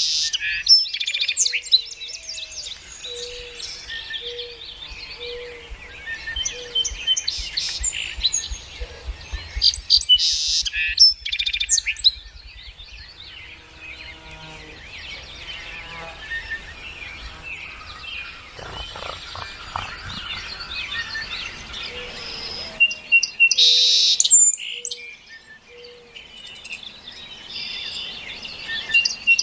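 Several birds chirping and calling at once, with a low hooting note repeated about once a second during two stretches.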